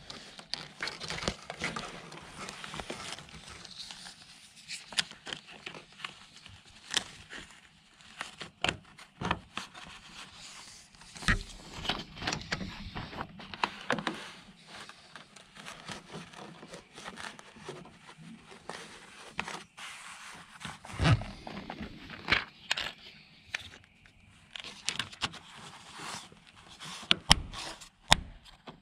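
Close handling noise of a wiring cable being tucked under floor carpet and along plastic door-sill trim: irregular rustling, scraping and sharp plastic clicks as the trim is pressed and fitted.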